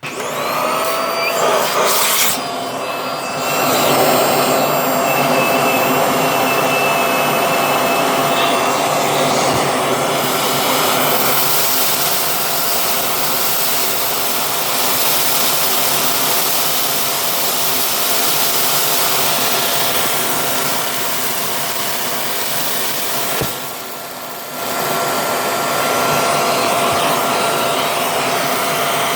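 Vacuum cleaner switched on, its motor spinning up with a rising whine and then running steadily. About 23 s in, the sound drops for about a second and then comes back.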